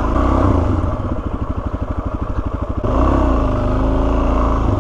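Single-cylinder dual-sport motorcycle engine pulling hard under throttle for a wheelie, then easing to a low, pulsing, loping run. It is revved up again about three seconds in.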